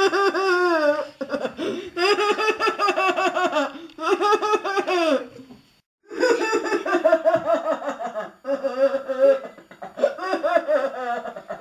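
A person's high-pitched laughing fit: long runs of rapid, pulsing 'ha-ha' laughter with short breaks for breath and one brief full stop about halfway through.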